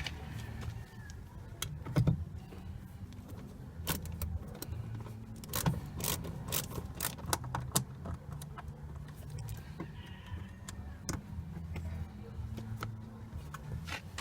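Irregular clicks and knocks of car interior trim being reassembled: plastic door-panel and grille parts and screws being handled and snapped into place, the loudest knock about two seconds in, over a low steady hum.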